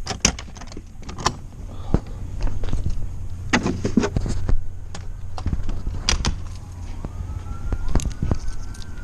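Scattered clinks and knocks of things being handled, over a low steady rumble; a faint siren wailing up and down comes in near the end.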